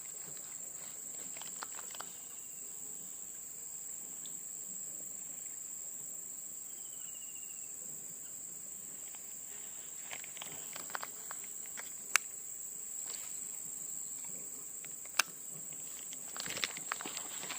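Insects trilling in a steady high-pitched chorus, with two sharp clicks midway and some rustling near the end.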